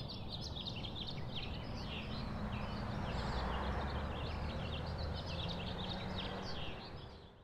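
Chorus of many small birds chirping rapidly over a low steady rumble, fading out near the end.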